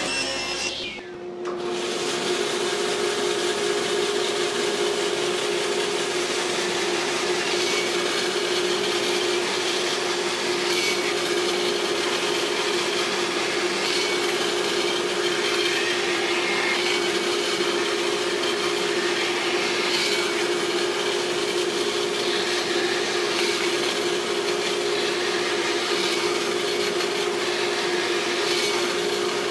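Bandsaw running with a steady hum, slicing short segments off a maple strip, a cut every few seconds.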